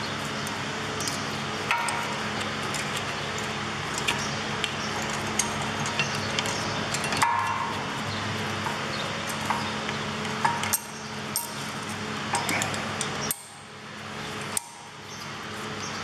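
Light metallic clicks and clinks as a screwdriver levers the worn front brake pads out of the caliper carrier, metal on metal, over a steady machine hum that cuts out about thirteen seconds in.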